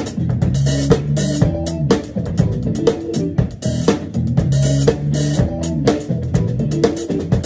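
Acoustic drum kit played with sticks in a funk groove, with kick, snare and a cymbal wash about once a second, along with a backing track that carries a bass guitar line.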